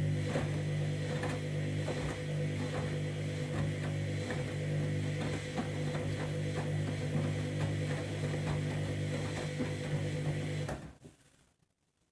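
Candy Grand'O Vita 7kg washing machine running with a steady low hum and regular light clicking, which cuts off abruptly near the end.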